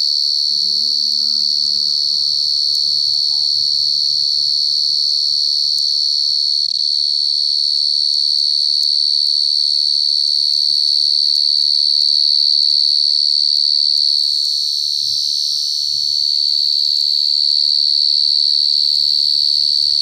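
A field cricket stridulates at its burrow entrance, giving a loud, steady, high-pitched song without a break.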